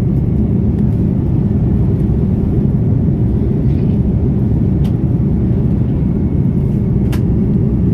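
Steady low roar of a jet airliner in cruise flight, heard inside the cabin: engine and rushing airflow noise through the fuselage. Two faint clicks sound, one about five seconds in and one about seven seconds in.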